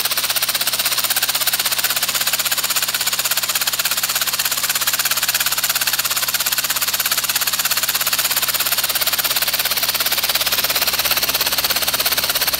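3D-printed plastic four-cylinder air engine running on compressed air at a steady speed: a fast, even pulsing hiss of exhaust air with mechanical clatter.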